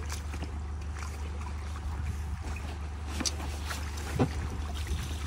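Steady low hum of the tow vehicle's idling engine, with scattered small knocks and one louder thump about four seconds in as a man clambers up into the inflatable boat on its trailer.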